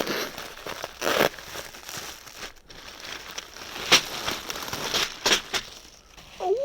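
Parcel packing material being rustled and crinkled by hand during unwrapping, in irregular bursts with a few sharper crackles.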